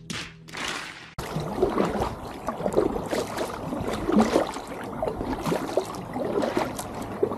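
Water gurgling and splashing around a paddle and an inflatable packraft's hull in irregular small blips as the raft is paddled. A low steady hum cuts off suddenly about a second in.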